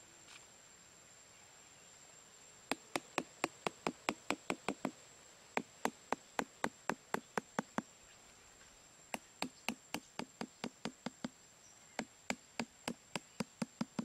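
Quick light taps of a small hammer driving thin bamboo stakes into sandy ground, in four runs of about five strikes a second. A faint steady high-pitched whine runs underneath.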